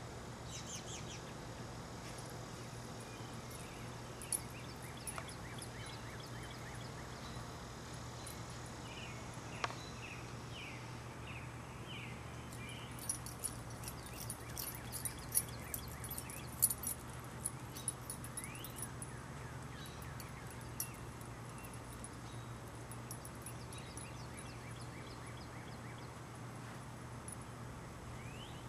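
Birds chirping and whistling, scattered at first, then a busy run of quick high chirps and ticks through the middle, over a steady low hum.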